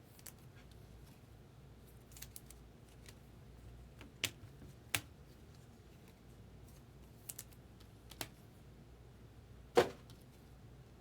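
Trading cards and their packaging being handled: a few scattered sharp clicks and taps, the loudest a little before the end.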